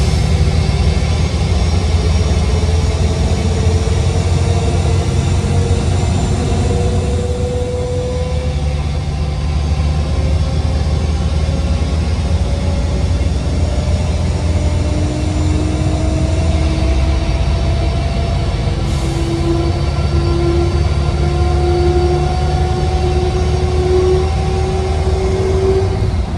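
DAF DB250 bus's turbocharged diesel engine pulling hard under load, heard from inside the bus, with a steady low rumble and a whine that rises slowly in pitch twice as the bus gains speed.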